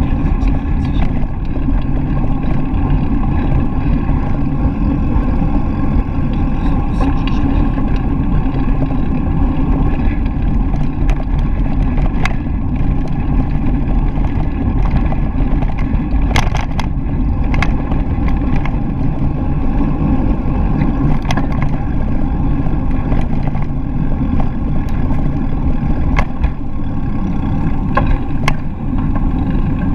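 Steady rumble of a moving bicycle picked up by a handlebar- or body-mounted action camera: tyres rolling on a packed forest path and wind buffeting the microphone. Occasional sharp clicks and rattles of the bike going over bumps.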